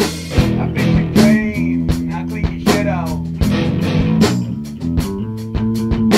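Band music: guitar over a steady drum beat, with sliding pitch bends in the first few seconds.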